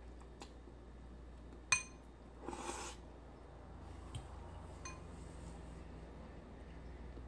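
Metal utensil clinking against a ceramic bowl of noodles: one sharp, ringing clink about two seconds in, then a couple of lighter clinks a few seconds later. A brief noisy sound comes shortly after the first clink.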